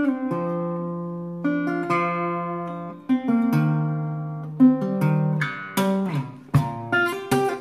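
Small steel-string acoustic guitar, capoed, played fingerstyle: a picked melody over ringing bass notes, with a few sharp struck chords around the middle and near the end.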